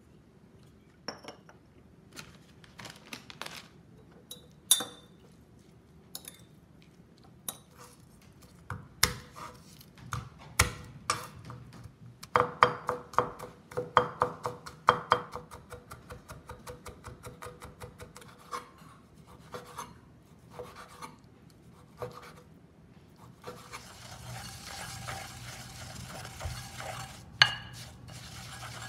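Kitchen prep sounds: a few scattered clinks and knocks, then a knife mincing garlic on a wooden cutting board in quick strokes, about four a second, thinning out after a few seconds. Near the end, a pestle grinding green onion in a mortar with a steady rasping, and one sharp knock.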